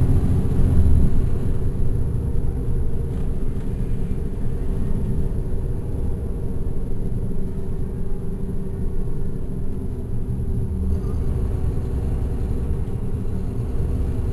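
Caterpillar C13 ACERT diesel engine of a NABI 416.15 transit bus, heard from the rear seats inside the cabin. A heavy rumble eases about a second in, then the engine runs on as a steady drone.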